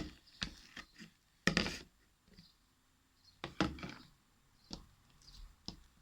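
Freshly mixed clear-glue slime being pulled out of its plastic container by hand: a series of short knocks and sticky pulling sounds, with two longer ones about one and a half seconds and three and a half seconds in.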